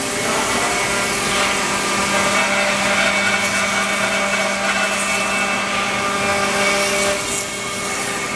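ShopBot CNC router spindle running steadily as its bit cuts along the edge of a solid wood slab to joint it straight: a steady whine over the rushing noise of the cut.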